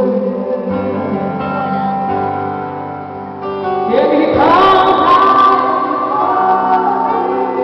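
Gospel song played live by a band with sustained backing chords; about halfway through a woman's singing voice comes in, sliding up to a long held note.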